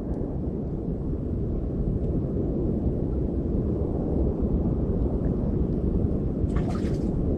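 Wind buffeting the microphone: a steady low rumble, with a brief rustle near the end.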